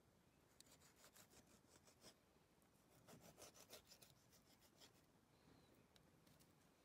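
Knife blade scraping over the skin of a plucked whole chicken, faint quick rasping strokes in two runs: one about a second in, another around three to four seconds in.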